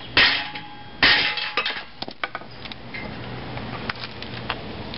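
Hammer blows on a plate set over an aluminium bushing, driving the bushing into its bore: two heavy ringing strikes within the first second or so, then a few lighter taps.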